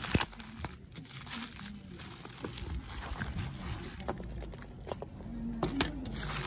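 Plastic bubble mailer crinkling and rustling as hands work it open and slide a sheet of cardboard out, with scattered sharp crackles of the plastic film.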